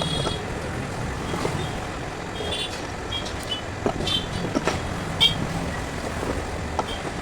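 Steady street traffic noise with several short, high horn toots and a few sharp clicks and knocks.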